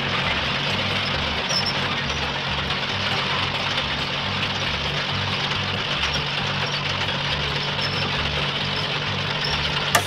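Truck engine running steadily, a low pulsing rumble under a constant hiss.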